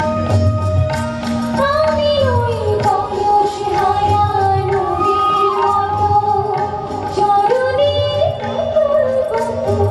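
A woman singing live into a microphone over a PA, holding long notes that slide between pitches, accompanied by tabla drums.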